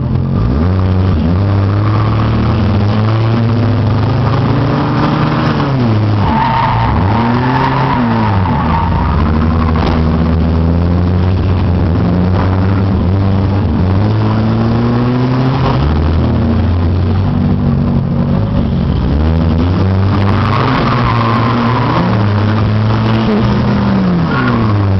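Race car engine heard from inside the car, running hard throughout. Its pitch climbs, then drops sharply and climbs again, many times over, as the throttle is lifted and reapplied through the turns.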